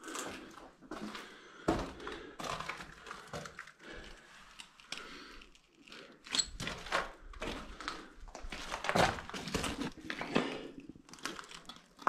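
Irregular knocks, scuffs and rustles of a person moving about in a mine passage, spaced unevenly, with a few sharper knocks about halfway through.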